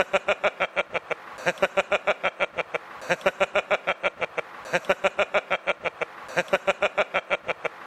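A man laughing hard and without stopping, in rapid, even 'ha-ha-ha' bursts of about seven or eight a second. The laughter comes in runs of about one and a half seconds, with a quick breath between each run.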